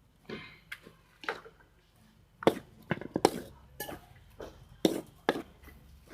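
Irregular knocks and clatter, about a dozen, the loudest in the middle: hard household items such as utensils and containers being handled and set down.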